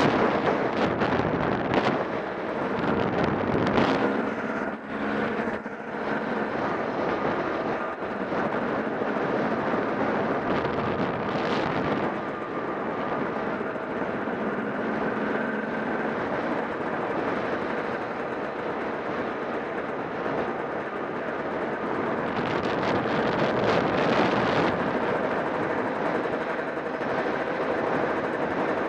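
Motorcycle engine running steadily at road speed, heavily mixed with wind rushing over the microphone, which gusts louder near the start and again about three quarters of the way through.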